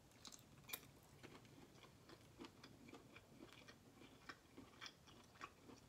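Faint mouth sounds of a person biting and chewing chicken sausage: soft, irregular wet clicks and smacks.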